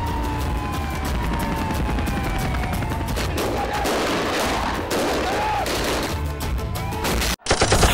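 Dramatic background music with rapid gunfire, many sharp shots in quick runs like automatic rifle bursts, and a few gliding whistle-like tones. The sound cuts out abruptly for an instant near the end.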